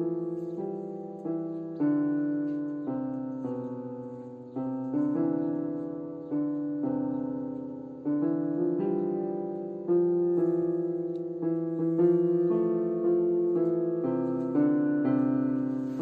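Gentle background piano music: notes and chords struck about once a second, each left to ring and fade before the next.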